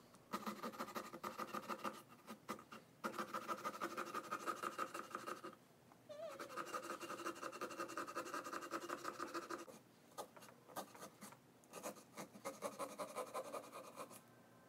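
Marker drawing on a pumpkin's skin: quick scratching strokes with a squeaky tone under them, in long runs broken by short pauses.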